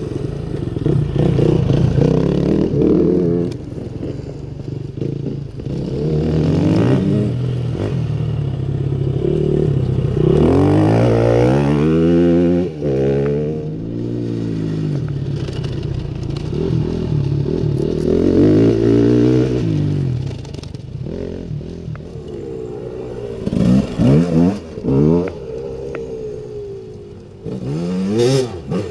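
Enduro dirt bike engine revving up and down through the gears, growing loud as it passes close and fading as it rides away. Several sharp loud revs come near the end.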